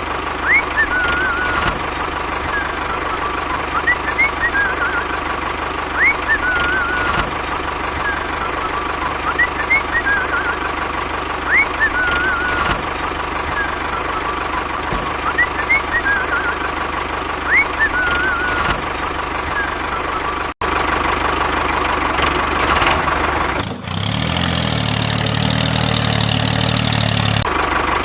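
A small motor running steadily with a held whine, overlaid by short rising chirps every second or two; about 20 s in the sound cuts and a different steady machine noise takes over.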